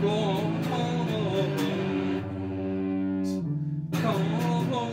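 Music: an electric guitar-led song, held low notes under a wavering, bending melody line, which thins out briefly a little past three seconds in.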